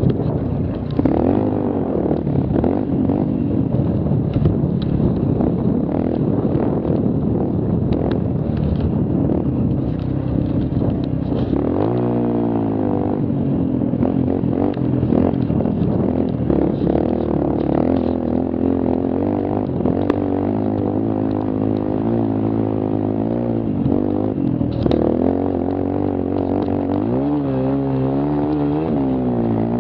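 Mini quad's engine running hard along a rough dirt trail, its pitch wavering with the throttle and climbing steeply about twelve seconds in and again near the end. Knocks and rattles from the machine over the bumps.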